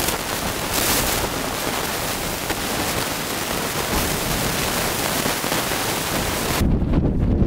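Steady, even outdoor hiss. About six and a half seconds in it changes abruptly to a low rumble of wind buffeting the microphone.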